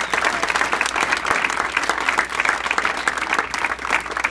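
A room full of people applauding, many hands clapping densely and steadily.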